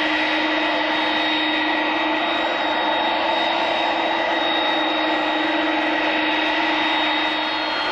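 Airbus A310-304's General Electric CF6-80C2 turbofans running at low taxi power as the airliner taxies. It is a steady jet whine, with high tones over a broad hiss.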